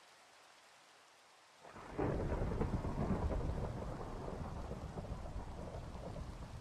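Near silence, then about two seconds in a deep rumble of thunder comes in over rain and slowly fades away.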